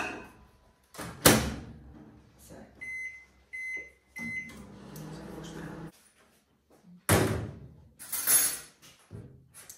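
Microwave oven door shut with a loud knock, then three short beeps as the buttons are pressed, and the oven starts running with a steady hum that cuts off after a couple of seconds. Two louder clatters follow near the end.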